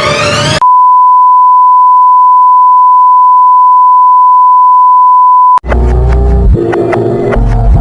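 A single steady electronic alert tone near 1 kHz, as used for an emergency broadcast alert, held for about five seconds and cut off abruptly. Just before it, a rising musical phrase ends. After it, music with a heavy low drone begins.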